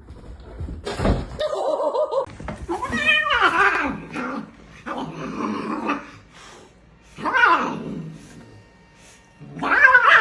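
A pet animal crying out again and again: about five drawn-out calls roughly two seconds apart, several of them sliding down in pitch.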